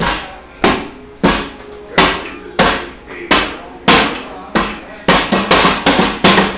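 Small child's hands slapping the lid of a round metal cookie tin like a drum, each hit ringing briefly. Evenly spaced beats, about one and a half a second, speed up to about four a second near the end.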